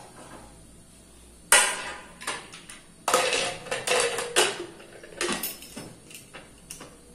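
Aluminium pressure cooker lid clanking onto the pot, then clattering and scraping metal on metal as it is fitted and turned to lock against the rim, with a final clack a little after five seconds.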